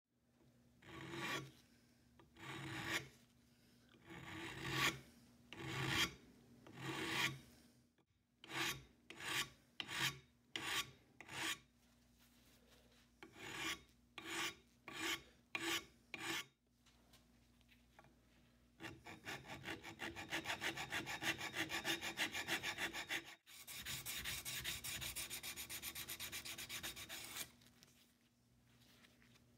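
Hand file rasping across the edge of a cast-iron hand plane casting held in a vise. It starts as slow separate push strokes about a second apart, speeds up, and then runs into a continuous fast rasp for the last third.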